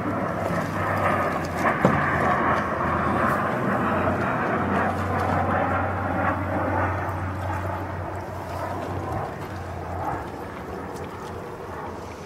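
Wet 1000-grit sandpaper scrubbing in circles on a plastic headlight lens: a steady rubbing hiss with a low hum beneath, easing off in the last few seconds.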